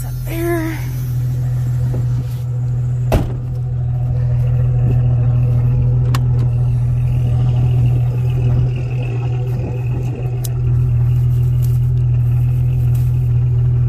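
Jeep on oversized tires driving slowly, its engine and drivetrain running with a steady low hum, and a single sharp knock about three seconds in.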